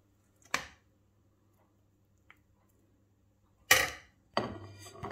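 Kitchenware clatter while dishing up rice: sharp knocks of a serving spoon against an aluminium pot and a plate. There is one knock about half a second in, the loudest nearly four seconds in, and another shortly after with a short ring.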